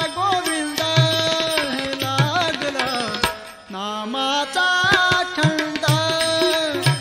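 Devotional bhajan music: tabla strokes keeping a steady rhythm under a gliding melodic line, dipping briefly about three and a half seconds in.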